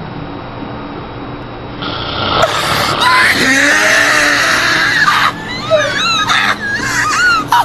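Steady hiss with a faint low hum, then, about two seconds in, a loud voice screaming and wailing, its pitch sliding up and down.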